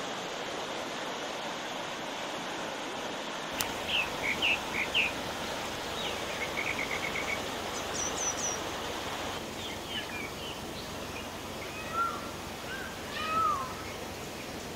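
Steady rushing of a forest stream, with several small birds chirping and calling over it from about four seconds in, including a short rapid trill.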